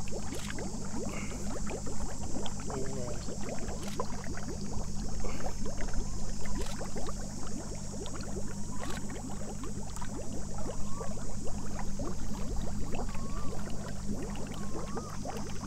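Lake water sloshing and splashing in small irregular bursts around a person standing chest-deep holding a large fish, over a steady high-pitched drone and a low steady hum.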